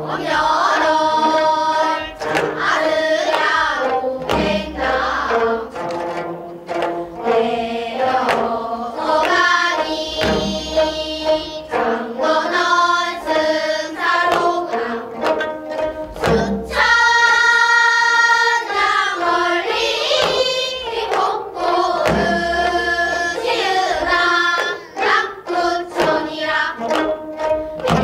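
Gayageum byeongchang: children singing a danga together in Korean traditional vocal style while plucking gayageum zithers, with strokes of a buk barrel drum underneath.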